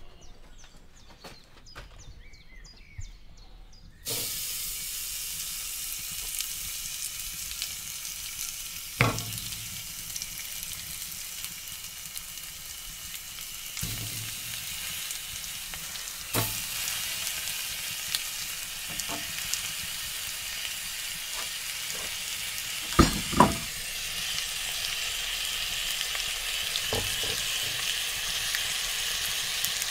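Raw pieces of food frying in hot oil in a metal pot, a steady sizzle that starts suddenly about four seconds in and grows louder near the end, with a few sharp knocks as the pieces are laid into the pot.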